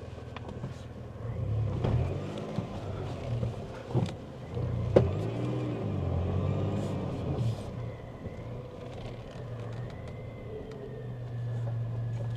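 Supercharged 1998 Toyota Tacoma engine running at idle, freshly revived after five years standing. Its revs rise and fall twice in the first half before settling back to a steady idle, with a few sharp knocks along the way.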